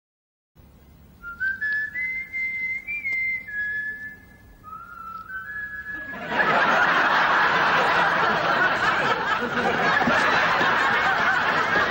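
A person whistles a short tune of a few held notes that step up and down. About halfway through, a studio audience breaks into loud laughter that continues to the end.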